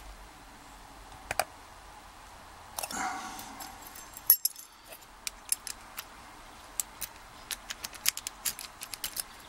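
Small metal tools clicking and tapping on a padlock being taken apart, with a short scraping rustle about three seconds in and a run of sharp separate clicks in the second half. The part being worked on will not move, so the lock is not coming apart.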